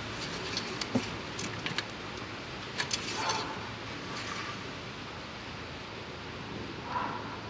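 Shop towel rustling as it wipes the oil dipstick of a diesel engine, with a few light ticks from the dipstick, over a faint steady hiss.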